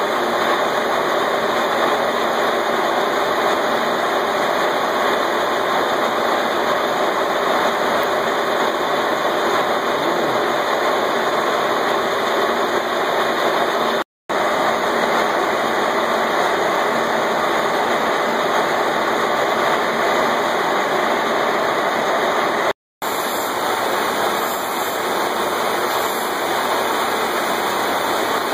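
Metal lathe running, turning a steel bar held between centres: a steady mechanical noise, broken twice by a short silent gap.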